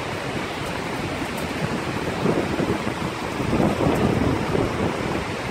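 Heavy rain falling steadily, with louder low rumbling swells about two seconds in and again from about three and a half to four and a half seconds.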